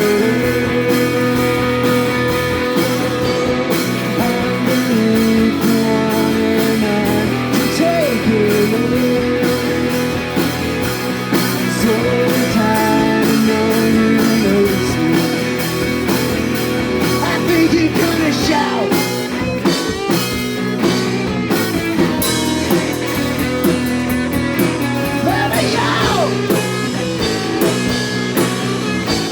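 Live rock band playing a song on electric guitar, bass guitar and drum kit, with held, bending notes over a steady drum beat.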